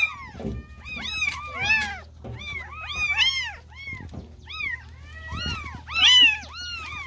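Several 40-day-old kittens mewing over and over, short high-pitched mews that rise and fall and often overlap, about two or three a second.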